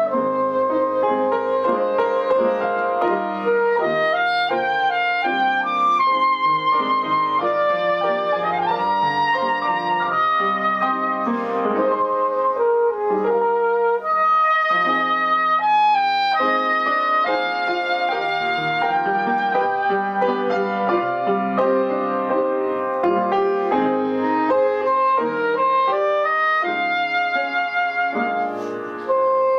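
Soprano saxophone playing a slow melody with sustained notes, accompanied by piano.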